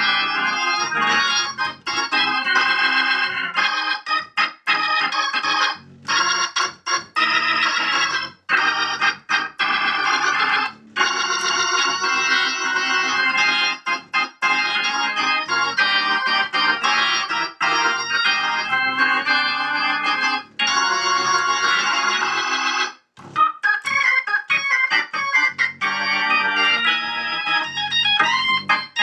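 1963 Hammond B3 organ played through a Leslie speaker cabinet with a freshly rebuilt Leslie 122 tube amplifier: sustained chords and runs, broken by short gaps between phrases.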